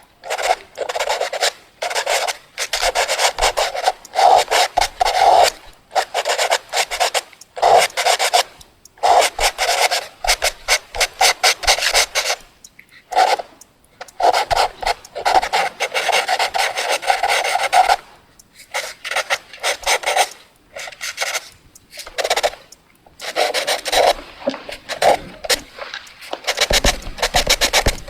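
Fast drawing on paper: quick rasping strokes of the drawing tool in runs of a second or two, broken by short pauses.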